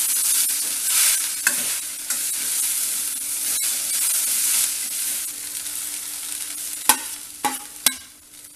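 Poha and vegetable stuffing sizzling as it is stirred and scraped around a hot stainless-steel kadai with a metal spatula, a steady hiss. Near the end, three sharp metal clinks against the pan.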